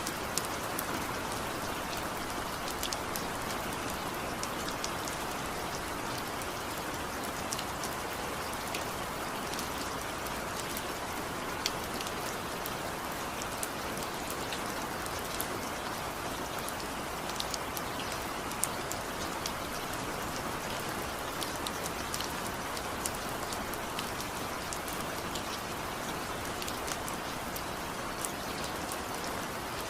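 Steady rain falling, an even hiss with many small drop impacts ticking through it.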